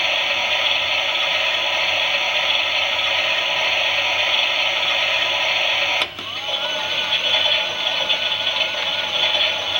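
Small electric motor of a Klein toy Miele washing machine running with a steady whirring buzz. About six seconds in there is a click, and the motor carries on with a slightly wavering whine.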